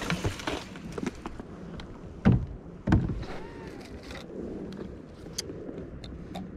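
Handling noise in a plastic sit-on-top fishing kayak while a baitcasting rod is cast: two heavy knocks a little over two seconds in and again about half a second later, then a few light clicks, over a low steady rumble.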